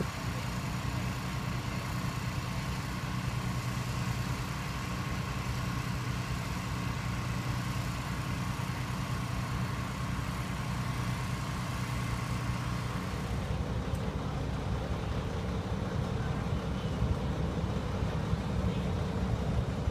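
Heavy engines idling steadily, a low hum with a faint steady whine; the sound changes abruptly about thirteen seconds in.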